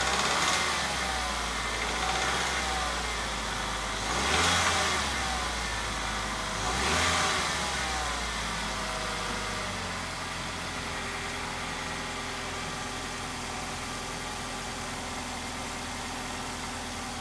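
Ford Fusion engine revved twice, a few seconds apart, rising and falling in pitch, then settling into a steady idle. No knocking is heard from it.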